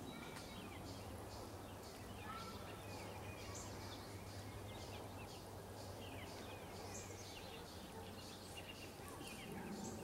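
Birds chirping faintly: many short high peeps and chirps, some falling in pitch, scattered throughout, over a low steady hum.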